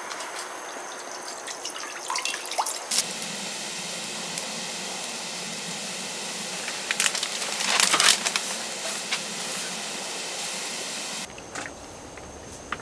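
Water poured onto a hot cast-iron pot-lid griddle, then boiling and steaming under a wire rack of buns with a steady hiss. A few metal knocks come about 7 and 8 seconds in, and the hiss drops quieter near the end.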